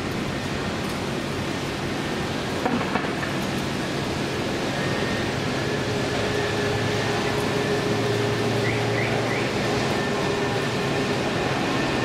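Boeing 777 airliner taxiing, its jet engines running at low thrust with a steady whine over a constant rumble.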